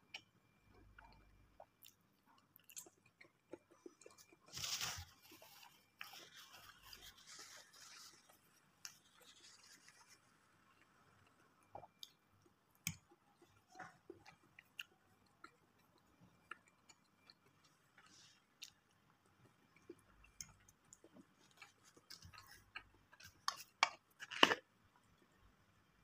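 Faint, close-up chewing and mouth sounds of someone eating forkfuls of burger patty, with scattered small clicks. There is a brief crackling rustle about five seconds in, and a cluster of louder clicks and crackles near the end.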